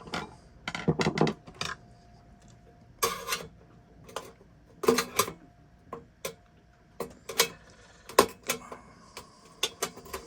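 Irregular clicks, taps and light clinks of a screwdriver and small metal and plastic parts being handled while a bread maker is taken apart.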